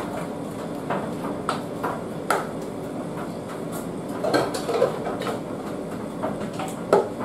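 Kitchen clatter: irregular light knocks and clinks of bowls, utensils and containers on a worktop, over a steady background hum. The loudest knock comes near the end.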